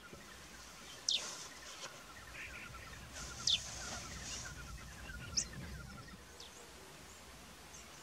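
Wild birds calling: four sharp, high whistled notes, each falling quickly in pitch, spaced a second or two apart. Beneath them runs a quieter series of rapid, evenly spaced lower notes that fades out after about five seconds.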